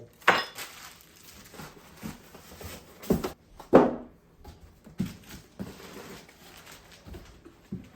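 Packaging crinkling and rustling in irregular bursts, with a few sharper louder handling noises, as meat grinder parts are unwrapped and taken out of the box.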